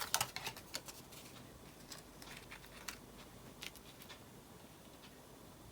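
Tarot cards being drawn and laid down: a quick run of faint clicks and rustles in the first second, then a few scattered light ticks.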